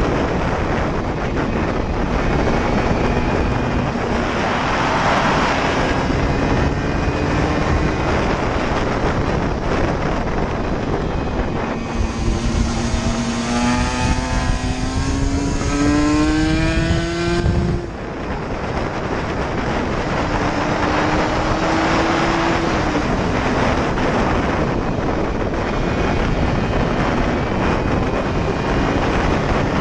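Aprilia RS125's 125 cc single-cylinder two-stroke engine revving hard under full throttle, heard onboard under heavy wind noise on the microphone. Its pitch climbs several times, most clearly in the middle, then drops away suddenly about eighteen seconds in as the throttle closes.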